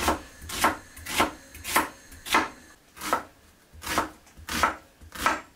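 Kitchen knife slicing an onion thin and striking a wooden cutting board. There are about nine evenly paced cuts, a little over one a second.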